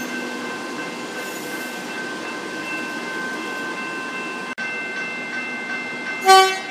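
Electric suburban train running alongside a platform, a steady high whine over rolling noise. Near the end, an X'Trapolis 100 electric train sounds one short, loud horn blast.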